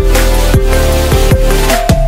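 Electronic dance music: a deep kick drum that drops in pitch on each beat, roughly every half second, under held synth notes.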